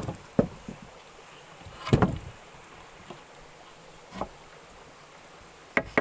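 Four separate knocks on a quiet background, the loudest about two seconds in.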